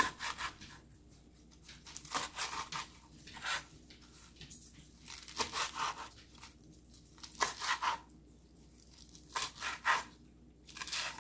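A kitchen knife chopping fresh spinach leaves on a plastic cutting board: short runs of crisp cuts through the leaves, with brief pauses between the runs.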